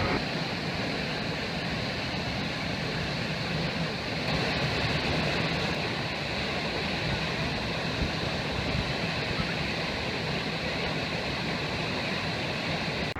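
Steady rushing of a waterfall, turning a little louder and brighter about four seconds in.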